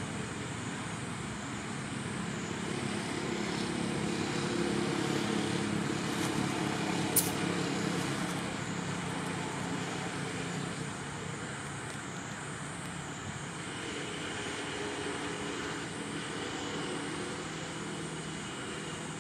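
Steady hum of distant motor traffic, swelling as a vehicle engine grows louder a few seconds in and then easing off, with one sharp click about seven seconds in.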